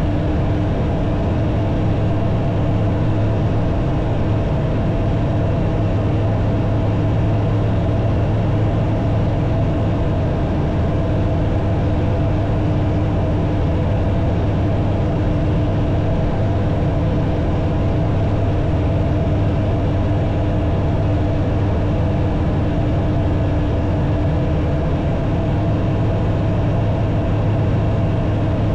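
Light aircraft's engine and propeller running steadily in level cruise, a constant drone with air rush, heard inside the closed cockpit.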